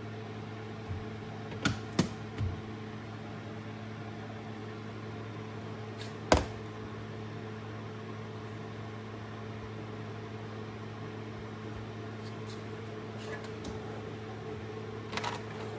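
A few sharp clicks and knocks of hand tools and small metal ratchet parts being handled on a workbench, the loudest about six seconds in and a cluster near the end, over a steady low hum.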